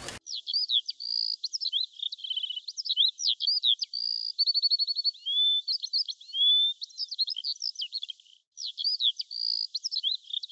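Birds chirping and singing: a busy run of quick whistled chirps, rapid trills and short rising whistles, all thin and high with nothing low beneath them. It breaks off for a moment about eight seconds in.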